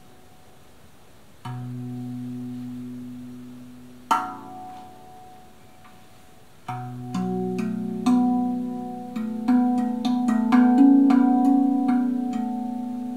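RAV Vast steel tongue drum played by hand in a slow improvisation. Single low notes ring out a few seconds apart, then a quicker run of overlapping, sustaining notes starts about eight seconds in.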